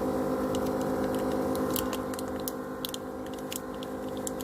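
Scattered light clicks and taps of small repair tools working on a smartphone, over a steady electrical hum.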